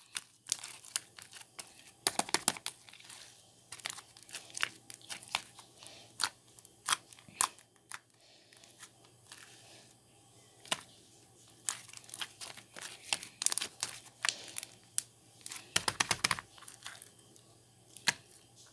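Slime being squished and stretched by hand, making irregular sticky clicks and pops, with two bursts of dense crackling, about two seconds in and near the end.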